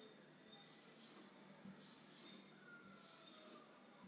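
Felt-tip marker drawing circles on a whiteboard: three faint, evenly spaced rubbing strokes, one for each circle.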